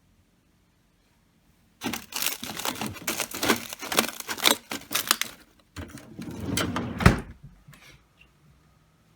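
Dense clattering and rattling of hard objects being handled, in two spells, the second ending in one sharp knock.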